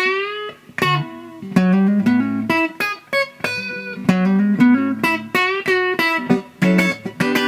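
Clean electric guitar: a Fender Telecaster on its bridge pickup, played through a DOD FX80-B Compressor Sustainer into a Fender Super 210 all-tube amp. It plays a riff of picked single notes and chords, with a string bend right at the start.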